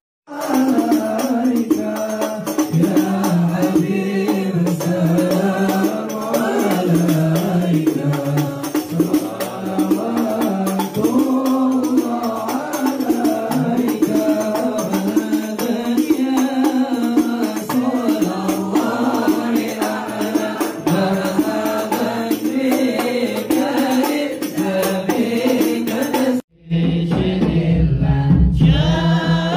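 A group of men chanting sholawat, Islamic devotional praise sung in Arabic, in unison with a lead voice on a microphone. The singing breaks off abruptly about 26 seconds in and picks up again a moment later.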